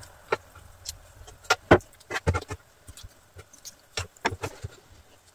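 Metal tongs clicking and tapping against the basket of a Philips air fryer as pre-fried chicken wings are set in one at a time: a series of irregular sharp clicks and soft knocks.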